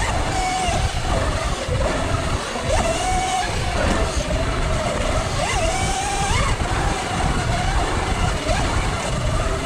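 Electric dirt bike's motor whining while riding, its pitch wavering and briefly rising a few times with the throttle. Heavy wind rumble on the microphone.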